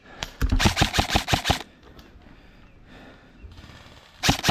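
Airsoft gun firing two fully automatic bursts of rapid mechanical shots, one about half a second in lasting just over a second and another starting near the end.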